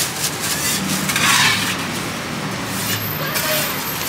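Food frying in a wok at a street-food stall: a burst of hissing sizzle about a second in, over a steady low hum.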